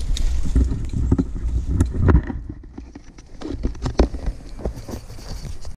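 Footsteps crunching through dry leaf litter while climbing rope and gear are handled, giving irregular crunches and clicks over a low handling rumble. It goes quieter for about a second near the middle.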